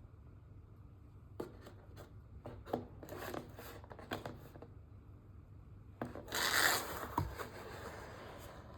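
Plastic bread packaging being handled and opened: a run of crinkles and taps, then a longer, louder rustle about six seconds in.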